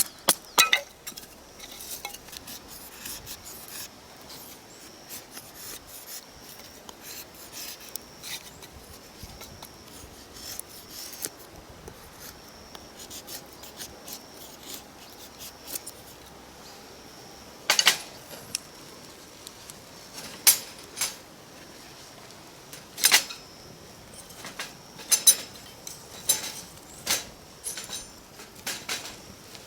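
Handwork with metal utensils and cookware: light scraping and rubbing with scattered sharp clinks and knocks, which come louder and more often in the second half.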